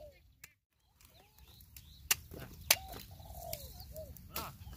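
Birds calling and chirping, with a couple of sharp knocks about two seconds in and again shortly after. Near the start there is a brief gap of near silence.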